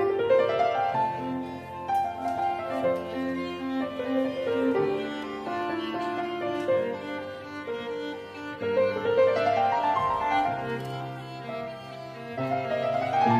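Instrumental background music, bowed strings with piano in a light classical style, with repeated rising runs of notes.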